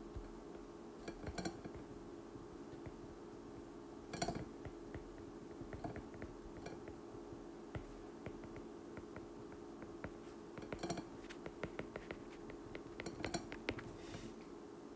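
Stylus tip tapping and sliding on a tablet's glass screen during handwriting: faint, irregular clicks that come thickest in the last few seconds, over a faint steady hum.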